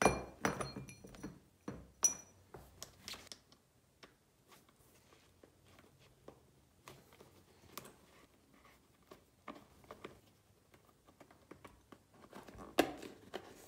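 Handling noises from a motorcycle boot's buckle and plastic parts: two sharp metallic clinks with a brief ring near the start, then scattered clicks, knocks and rustles, with a louder flurry of handling near the end.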